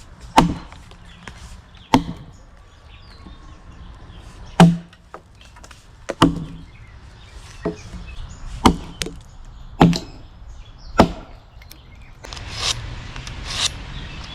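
An axe chopping into a log to cut a notch: about eight hard, separate strikes, one to two and a half seconds apart, then a run of quicker, lighter strikes near the end.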